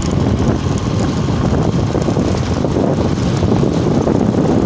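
Steady wind rumble on the microphone mixed with road and engine noise from a vehicle moving at speed along a highway.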